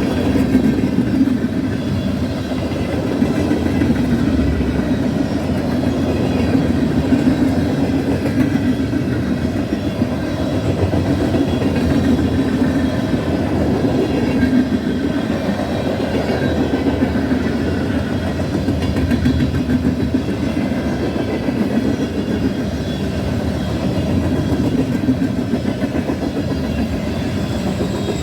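Norfolk Southern freight train of gondola cars rolling past, a steady, unbroken rumble of steel wheels on the rails.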